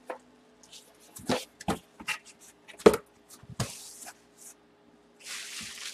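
Bubble wrap being handled and pulled apart by hand, giving irregular sharp crackles and clicks, with a longer rustle near the end.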